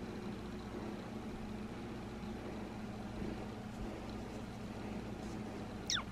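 Domestic cat purring steadily while being stroked, then a short, high meow falling in pitch near the end.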